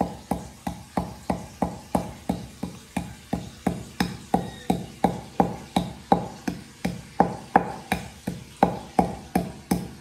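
Wooden pestle pounding steadily in a wooden mortar, about three even strikes a second.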